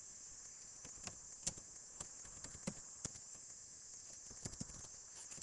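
Faint computer keyboard typing: scattered, irregular key clicks over a steady hiss.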